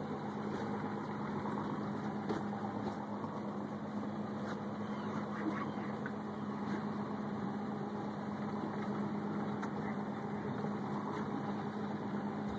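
Boat engine idling, a steady low hum, with a few faint clicks.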